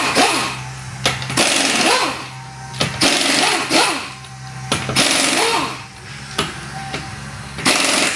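Pneumatic impact wrench running in about five short bursts, each a loud hammering rattle with a whine that sweeps up and down as the tool spins up and slows.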